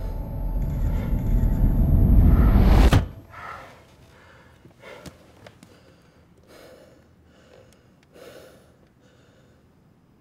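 A low rumbling drone swells louder, with a rising hiss on top, and cuts off abruptly about three seconds in. Then a man breathes heavily and sighs several times inside a car, with a sharp click around five seconds in.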